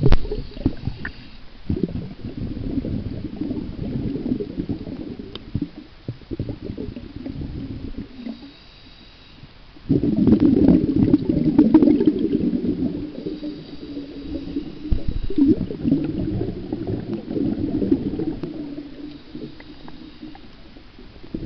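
Muffled water churning and gurgling around a submerged camera as a man swims, in uneven surges, with a quieter stretch for about two seconds before it grows louder again halfway through.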